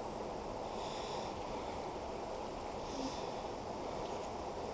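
Faint, steady rush of flowing river water.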